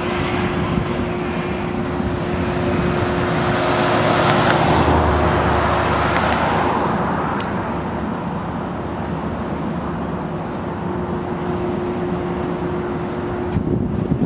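Road and tyre noise from a vehicle driving along a road, with a steady hum throughout; passing traffic makes the rushing noise swell from about three seconds in and fade by about seven.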